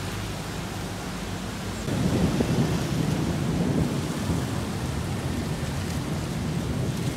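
Steady rain, with a low rumble of thunder that starts suddenly about two seconds in and rolls on, slowly easing.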